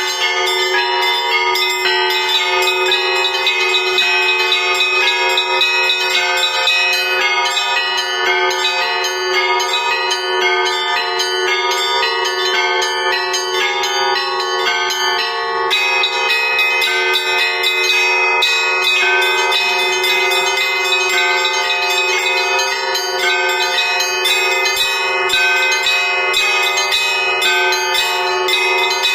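Russian Orthodox church bells rung by hand: several bells of different pitch struck in a rapid, unbroken pattern, each ringing on under the next strikes. This is a festive peal rung to greet a procession of the cross.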